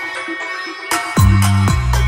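Atmospheric chill-out dub music: sustained melodic tones with sharp percussive hits, and a deep bass line that comes in just over a second in.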